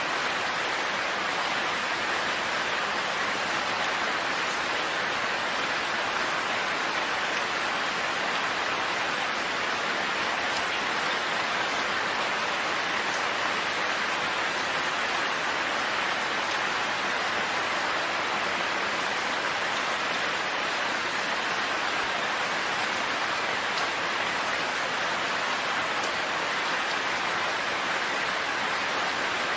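Steady rain falling, an even, unbroken hiss of drops with no thunder.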